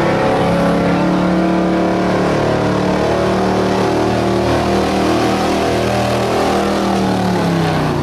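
A 1977 Ford F-350's gas engine running loud at high revs under heavy load as it pulls the sled, its pitch sagging a little near the end.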